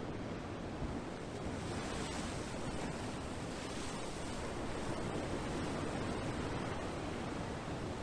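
Ocean waves washing ashore, a steady hiss of surf that swells a couple of seconds in and eases off again.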